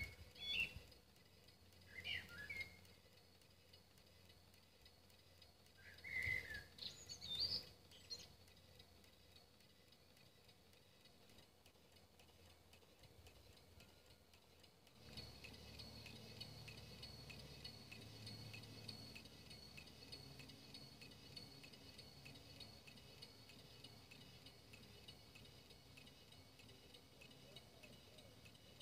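Faint bird chirps: a few short calls in the first several seconds, then quiet. About halfway a faint steady hum sets in and continues.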